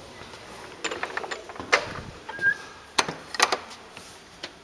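A few sharp knocks and clicks, four or so spread out, with a brief high squeak about halfway through, as someone goes in through a church door.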